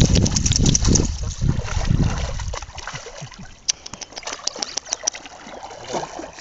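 Water splashing as an Alaskan Malamute wades and paws about in a shallow river. The splashing is heaviest in the first couple of seconds, then thins to lighter scattered splashes.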